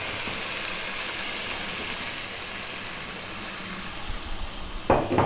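Water poured from a saucepan into a hot pot of frying lentils and vegetables, a steady hissing rush that slowly fades as the pour ends and the pot settles. A few short knocks near the end.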